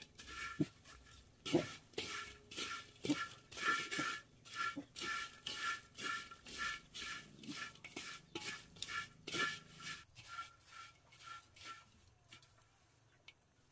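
Wooden chopsticks scraping and tossing sugar-coated coconut jam strips around a cast iron wok, about two strokes a second, with a faint metallic ring on each stroke. The sugar has dried to a powdery coating. The stirring stops about ten seconds in.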